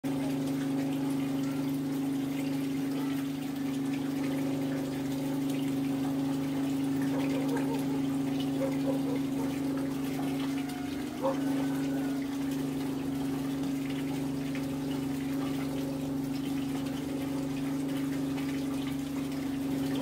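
Water pouring from a pipe into a concrete tank, with a steady low hum running under it throughout.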